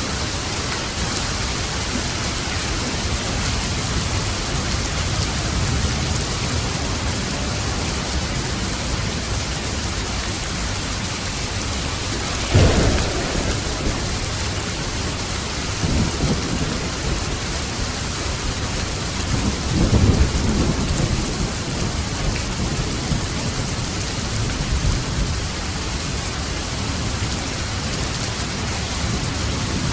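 Steady heavy rain with thunder: a sharp crack a little before the middle, then two lower rumbles a few seconds apart.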